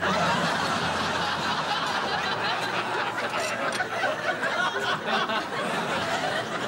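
Studio audience laughing, many voices together, breaking out at once and going on steadily.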